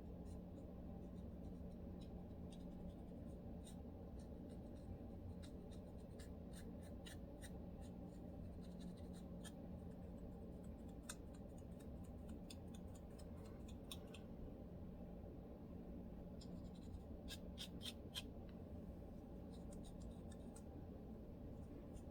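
Faint scratching at a dry, flaky scalp to loosen dandruff, in short irregular scraping strokes that come thicker about six seconds in and again later on. A steady low hum runs underneath.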